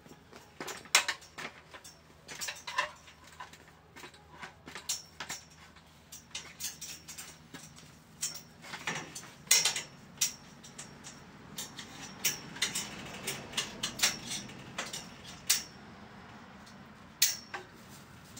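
Irregular metallic clinks and taps from work on the steel pipes and fittings of a greenhouse frame, some with a short bright ring, coming in quick clusters.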